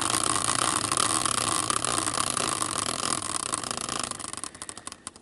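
Prize wheel spinning, its rapid ticking blurring together, then slowing into separate clicks farther and farther apart until it stops near the end: the wheel coming to rest on its pick.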